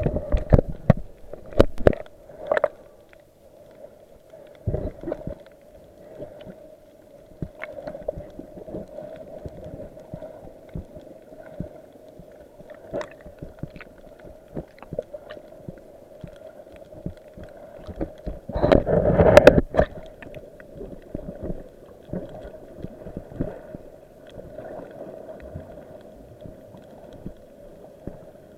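Muffled water sounds from a camera in the sea during snorkelling: a steady hum with scattered clicks and gurgling. A louder burst of splashing or bubbling comes about nineteen seconds in.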